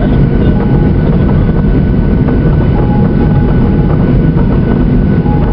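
Cabin noise of a Boeing 737-800 taxiing, heard from a window seat beside the engine: the CFM56 engines running at low power under a steady, heavy rumble of the aircraft rolling along the taxiway.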